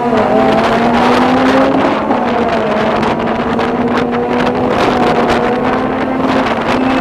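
Two front-wheel-drive drag cars at full throttle accelerating away down the strip, their engine note held high with a few short breaks. Wind buffets the microphone.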